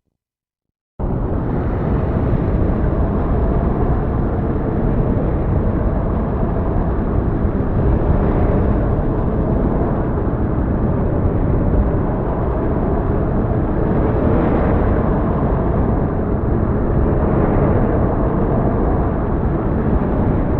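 Heavy storm ambience: a dense, steady, deep roar that cuts in suddenly about a second in after a moment of silence.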